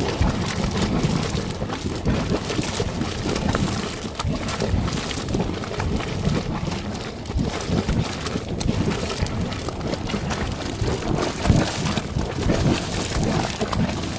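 Mud spring bubbling: thick mud churning with many small, irregular pops and plops.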